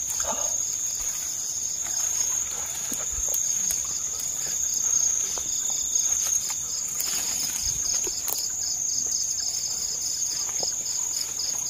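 Night insects: a continuous high, steady trill with a rapid, regularly pulsed chirping just below it, typical of crickets.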